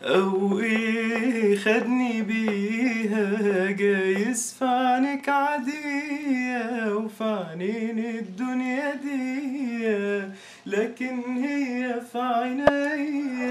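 A man singing a melody unaccompanied, in long held notes that waver and bend in pitch, with short breaths between phrases.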